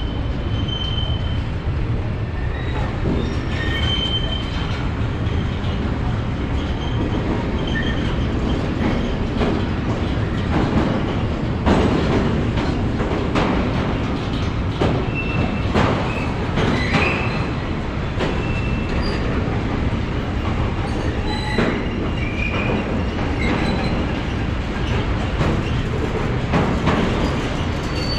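Freight train of tank wagons rolling past close by: a steady rumble of steel wheels on rail, with scattered clacks as the wheels cross rail joints and short, high wheel squeals.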